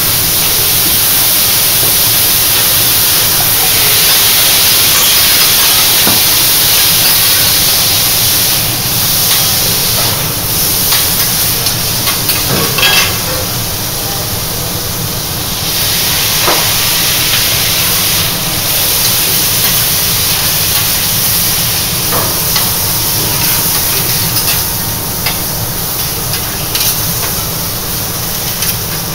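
Liquid poured from a jug onto a hot steel teppanyaki griddle around shrimp, hissing loudly as it flashes to steam; the hiss eases about halfway through into a lighter sizzle. A few sharp clicks of metal utensils on the griddle are heard along the way.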